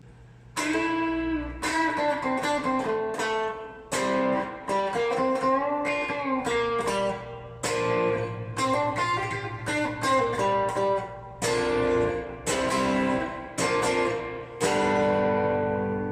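Electric guitar played through a VOX VT40X modelling amp: a phrase of picked notes and chords with several bent notes, ending on a chord left to ring out.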